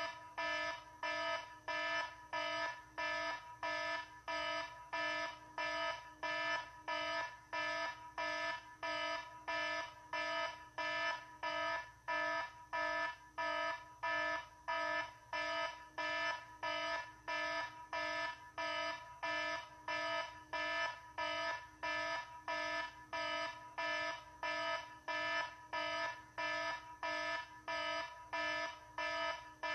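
An electronic alarm beeping over and over, about two pitched beeps a second, left sounding unanswered.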